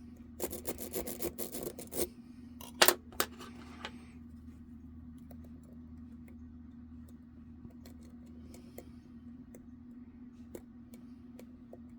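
Metal lock picks and a tension wrench scraping and clicking in a Medeco original pin-tumbler lock: a flurry of scrapes and clicks in the first two seconds, a couple of sharp clicks about three seconds in, then faint scattered ticks of picking over a steady low hum.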